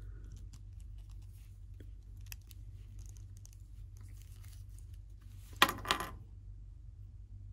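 Faint clicks and scrapes of a small hard-plastic action figure and its pistol being handled as the pistol is pushed onto the figure's tight hip holder, with a louder double click about five and a half seconds in.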